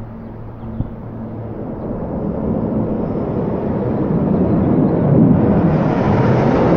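Fighter jet flying overhead: a rushing jet-engine roar that grows steadily louder as it approaches, turning brighter and harsher over the last couple of seconds.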